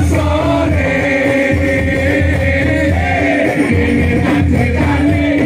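A male voice singing sholawat, an Islamic devotional song, in long melodic lines over steady instrumental accompaniment.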